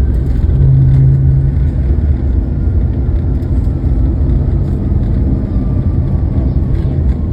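Airliner cabin noise on the landing rollout: a loud, steady low rumble from the jet engines and the wheels on the runway, with an engine whine slowly falling in pitch as the engines spool down after touchdown.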